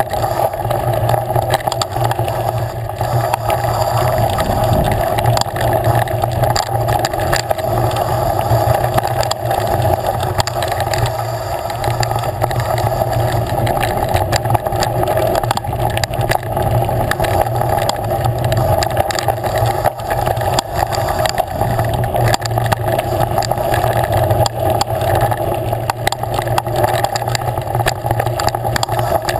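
Continuous riding noise from a fast descent on a dirt trail: a steady drone with frequent small rattles and knocks from the bumpy ground.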